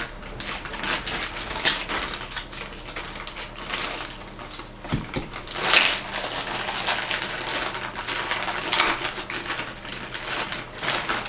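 Clear plastic packaging bag crinkling and crackling as it is handled, a dense run of small crackles with louder crinkles about six and nine seconds in.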